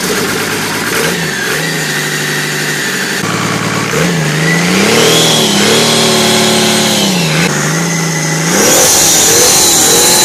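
Turbo-diesel engine running, its revs rising and falling: blipped up about four seconds in and again near the end, when a high whine joins in.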